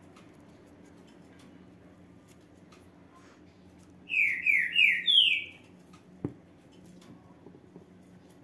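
A bird chirping four quick, loud notes, each falling in pitch, about four seconds in, over faint rustling of ribbon being gathered on a needle and thread. A single sharp tap follows about two seconds later.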